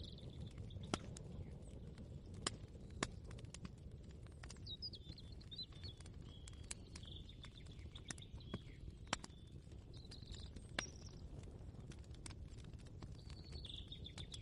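Ambient soundscape: a low steady rumble with scattered sharp clicks and ticks, while a small bird chirps in several bouts, longest from about four to nine seconds in.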